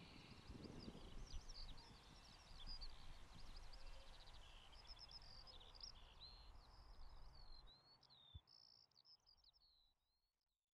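Faint natural ambience: birds chirping in quick high notes over a soft outdoor hiss, fading out to silence near the end.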